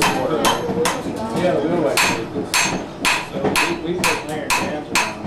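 A hammer striking metal in steady, evenly spaced blows, about two a second.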